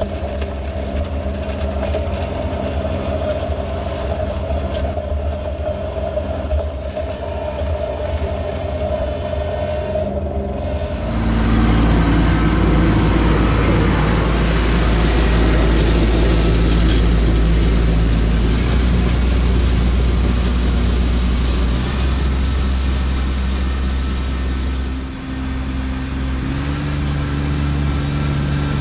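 Kubota B2601 compact tractor's three-cylinder diesel engine running steadily under load while plowing snow. About eleven seconds in, the sound becomes suddenly louder with a deep rumble as the tractor works close by. Near the end the engine pitch steps up.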